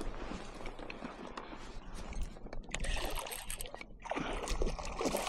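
Water sloshing and splashing around a kayak, with a steady low wind rumble on the microphone and a louder rush of noise about three seconds in.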